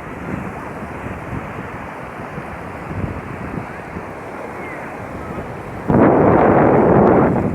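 Sea waves washing on a beach, a steady rushing noise, with wind on the microphone. About six seconds in, a sudden much louder rush sets in and lasts about a second and a half.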